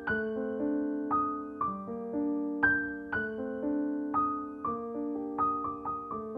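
Soft background piano music: a slow melody over sustained chords, each note struck and left to ring.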